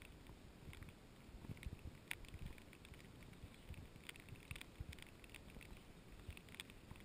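Light rain: faint, irregular ticks of raindrops landing on the camera, over a low rumble of wind on the microphone.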